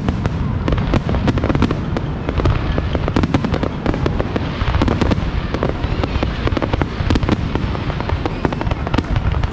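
Fireworks display: a dense, continuous barrage of bangs and crackles over a steady low rumble.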